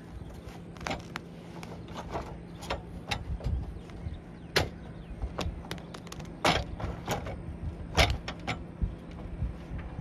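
Irregular clicks and knocks as the rolled vinyl fabric and roller tube of an RV awning are handled and pushed into place at the end cap, over a steady low hum. The sharpest knocks come about four and a half, six and a half and eight seconds in.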